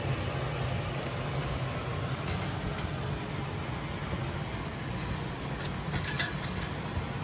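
Steady low mechanical hum like a running fan, with a few light crackles and taps around two seconds in and again between five and six and a half seconds in, the loudest just after six. These come as crisp, freshly fried golgappa puris are handled and pressed with a finger on a steel plate.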